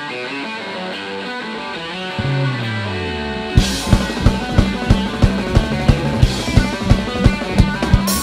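Live rock band: electric guitar plays alone at first, then a low note slides down in pitch, and about three and a half seconds in the drum kit and the rest of the band come in with a steady kick-drum beat.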